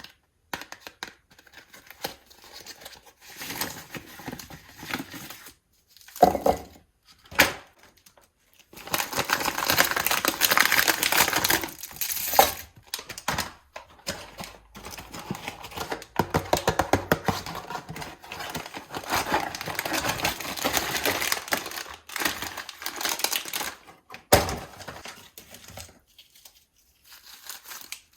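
Plastic sweet packets being torn open and crinkled, with long runs of rapid small clicks and rattles as the sweets are tipped out.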